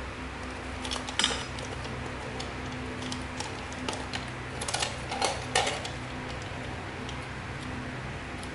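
A metal tubular spring hanging scale handled and turned in the hands: a scattering of light metallic clicks and clinks, over a faint steady hum.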